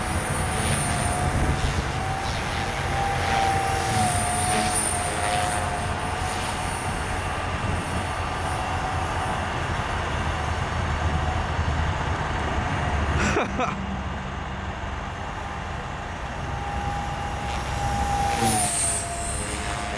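Radio-controlled helicopter flying aerobatics overhead, its rotor whine holding a steady pitch that dips and recovers twice as it manoeuvres, over a low steady rumble of idling semi trucks. A single sharp knock about two-thirds of the way through.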